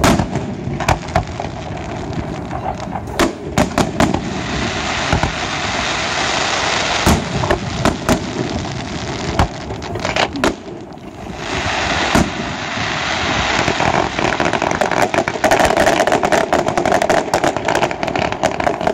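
Fireworks display: aerial shells bursting with sharp bangs, several in quick succession, over a continuous hiss and crackle of burning stars. After a short lull about two-thirds of the way in, a dense, rapid crackling builds toward the end.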